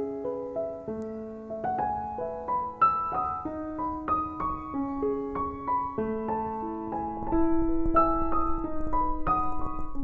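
Gentle background piano music: a slow melody of single ringing notes over held lower notes. A low rumble comes in underneath about seven seconds in.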